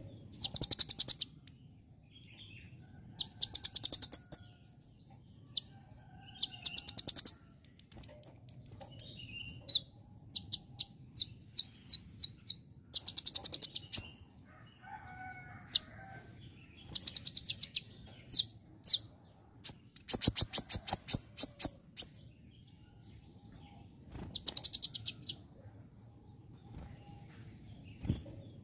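Male kolibri ninja sunbird singing: bursts of rapid, very high-pitched trilled notes, a new burst every two to four seconds, in a song that imitates the calls of the bar-winged prinia (ciblek).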